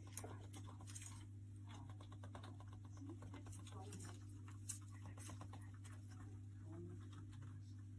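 Faint scattered clicks and scratching over a steady low hum, with one sharper click about halfway through.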